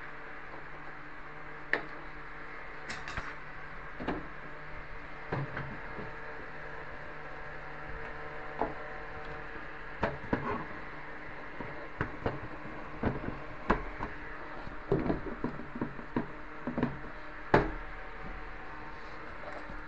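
Irregular knocks and clicks of hard objects being handled, coming more often in the second half, over a steady low hum.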